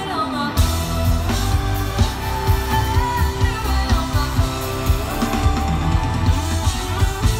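Live pop band playing with a woman singing: a steady heavy drum and bass beat under keyboards and guitar, heard from among the crowd.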